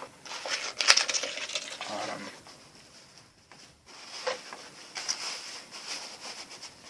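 Handling noises from a GP-5 gas mask and its kit being moved about by hand: rustling with scattered light clicks and knocks, the sharpest about a second in.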